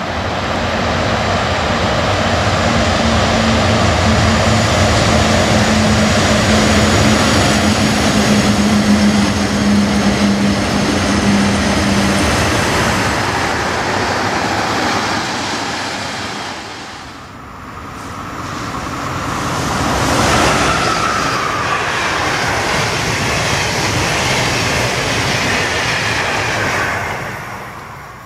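Freight train hauled by two red Crossrail electric locomotives passing close by: a loud continuous rumble and clatter of wheels on rail. A steady hum runs through the first twelve seconds. The noise eases briefly about two-thirds of the way through, swells again as the wagons roll past, and fades near the end.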